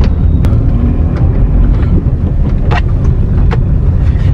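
Car driving slowly, heard from inside the cabin: a loud, steady low rumble of engine and tyres on the road, with a few sharp clicks and knocks.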